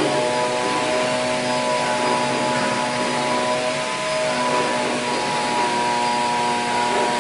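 CNC machining center running: a steady whirring machine noise with several held tones over a hiss.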